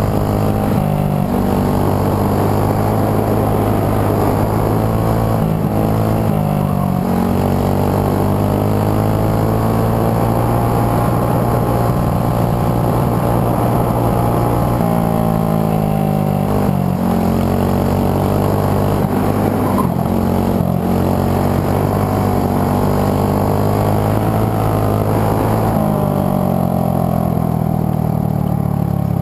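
Briggs & Stratton World Formula single-cylinder four-stroke kart engine running hard through an autocross course, its pitch climbing on the straights and dropping several times as the kart slows for corners.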